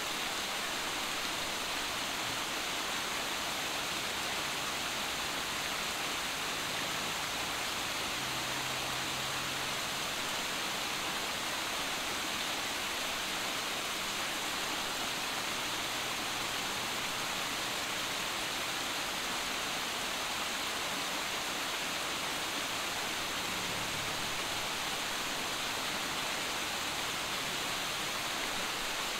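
Small waterfall spilling over boulders into a rocky stream: a steady, even rush of splashing water.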